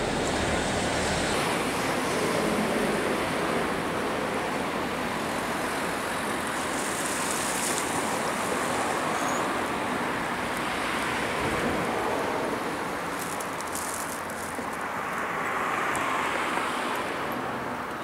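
Steady seafront ambience: a continuous wash of wind and water mixed with the hum of distant road traffic, swelling slightly about two seconds before the end.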